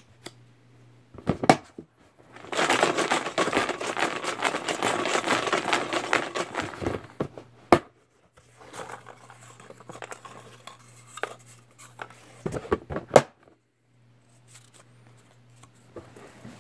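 Hands stirring and rattling slips of paper in a plastic tub to draw a raffle ticket: a few clicks, then about five seconds of dense rattling and rustling, then quieter rustling, paper handling and a few clicks.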